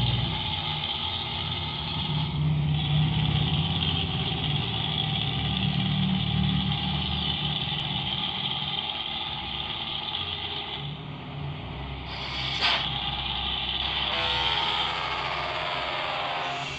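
Bus diesel engine running, its exhaust note snoring and rough, with a brief hiss about three-quarters of the way through.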